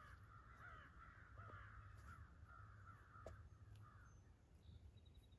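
Faint chorus of many overlapping bird calls, running on for about four seconds and then fading out, over a low steady outdoor rumble.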